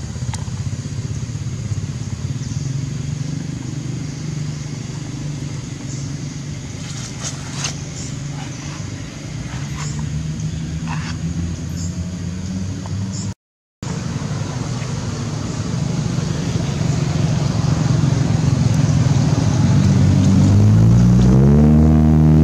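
A motor vehicle engine running steadily, with a low hum throughout; near the end it grows louder and its pitch rises and then falls. A brief dropout to silence about halfway through.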